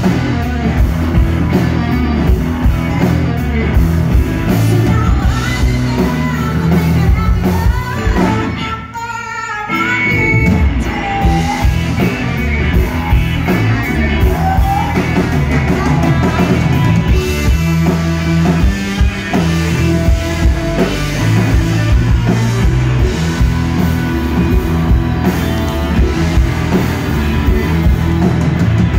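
Live blues-rock band playing loud through a PA: electric guitar, bass guitar and drum kit, with a woman singing. About nine seconds in the band drops out briefly, leaving a short, thinner break before it comes back in full.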